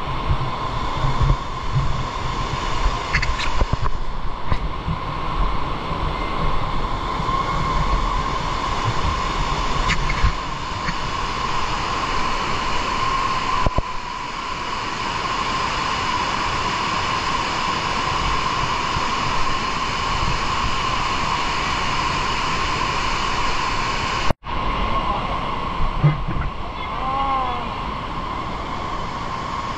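Rushing water of a cave stream: a steady, unbroken roar of flowing water.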